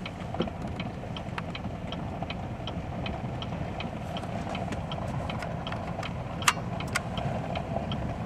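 Truck engine idling, heard from inside the cab, with a steady light ticking about two or three times a second and two sharp clicks about six and a half seconds in.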